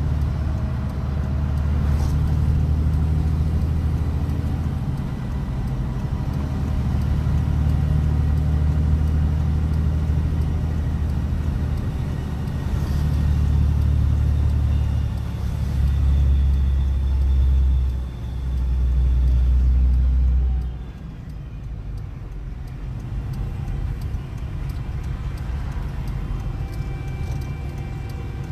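Large farm machine's engine running as it drives along a road, a steady low drone heard from inside the cab. The engine eases off about three quarters of the way through and keeps running more quietly.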